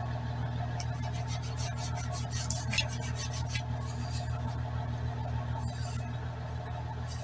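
An engine idling steadily, with a run of light clicks about one to three and a half seconds in.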